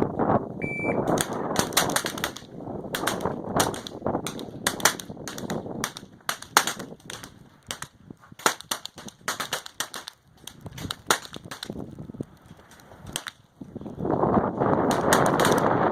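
A short electronic beep just under a second in, then several .22 LR rifles firing a rapid, irregular string of sharp shots that overlap and thin out toward the end. Wind buffets the microphone near the start and again near the end.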